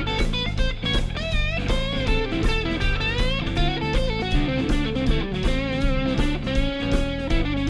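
Background music: an electric-guitar-led track with bending lead notes over a steady beat.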